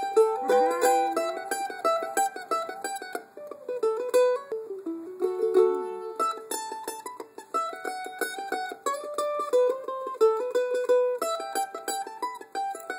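Mandolin playing a bluegrass tune with fast, steady picking. A short sliding dog howl trails off under a second in.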